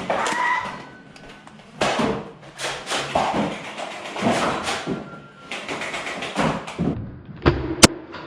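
Irregular thumps, knocks and clicks of a Nerf blaster fight: blasters firing, foam darts striking and players scrambling. A very sharp click near the end is the loudest.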